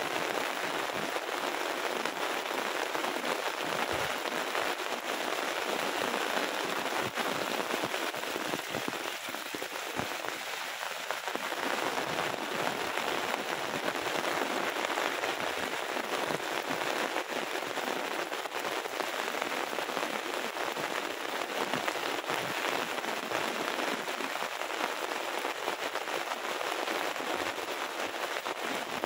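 Heavy rain falling steadily: a dense hiss of drops with many small ticks of individual drops striking nearby surfaces.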